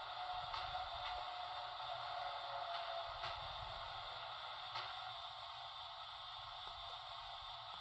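Electrotren Renfe 470 model train's sound decoder playing a steady mechanical running sound through its small speaker: an even hiss with a faint held tone and a few light ticks.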